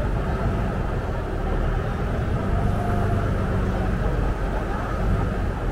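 Saen Saep canal express boat's engine running steadily under way, a loud, even low rumble.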